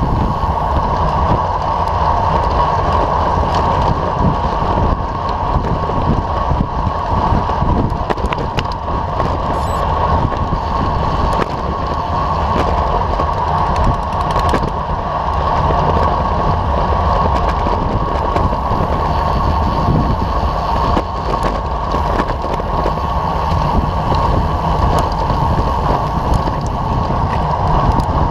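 Steady rushing wind buffeting the microphone of an action camera on a road bike moving at race speed, mixed with the road noise of the bike on asphalt.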